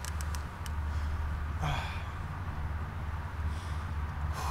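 An angler breathing hard, with one strained sigh about a second and a half in and softer breaths near the end, worn out from a long fight with a big sturgeon on the rod. A steady low hum runs underneath.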